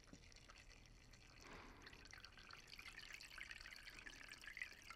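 Kerosene faintly trickling and dripping from the drain of a motorcycle's frame oil tank into a paper-filtered funnel over a plastic tub, growing a little more present about halfway through.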